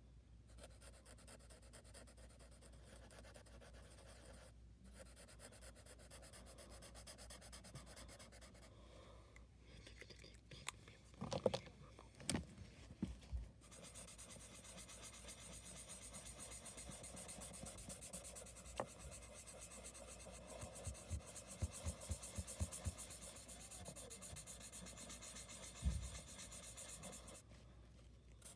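Sharpie marker tip rubbing across paper while an area is coloured in, a soft steady scratchy hiss that grows stronger about halfway through. A few sharp knocks come a little before halfway, and a single thump comes near the end.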